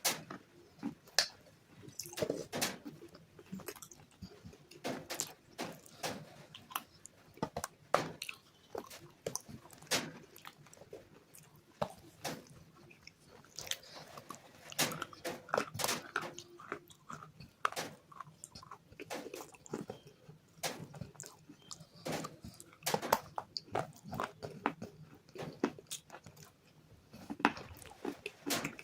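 Close-miked biting and chewing of hard, brittle bars: sharp crunches and crackles at irregular intervals, with a few loud snapping bites.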